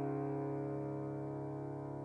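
Background music: a held keyboard chord slowly fading away.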